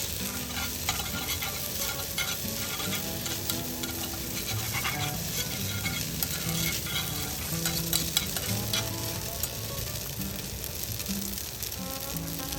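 Food frying in a pan, sizzling and crackling steadily.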